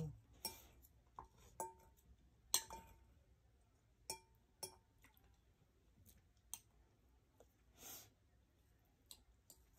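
Faint eating sounds: scattered light clinks and clicks of cutlery against a plate, some with a short ring, about eight over the stretch, with a soft rustle near the end.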